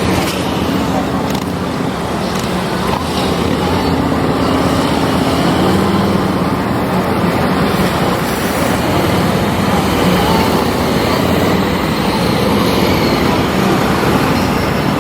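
Motor vehicle engines running steadily, with a low hum that shifts slightly in pitch.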